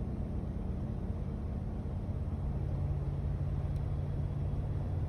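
Inside the cab of a Dodge Ram Van B250 with its 318 V8, driving at highway speed: a steady engine drone and tyre and road noise, the engine note rising slightly partway through as the van gathers speed toward 50 mph. No whistle is heard from the newly resealed vent windows.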